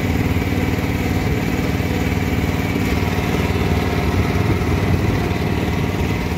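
Small outboard motor on a wooden jangada running steadily, heard from on board as the boat moves across the water.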